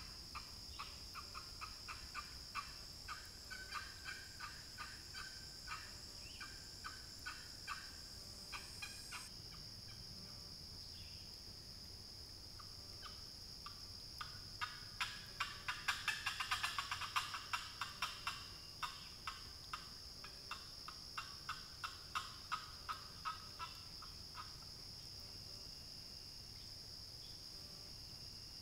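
Walnut-over-chestnut wooden box call, worked from about 50 yards off, imitating a hen turkey: a steady series of yelps, a pause, then a louder and faster run of notes about halfway through, followed by more yelps that stop a few seconds before the end. A steady high insect drone runs underneath.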